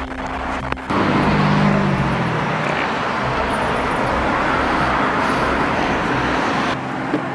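Road traffic noise: a vehicle passes about a second in, its engine note falling, followed by a steady rush of tyre and road noise that cuts off abruptly near the end.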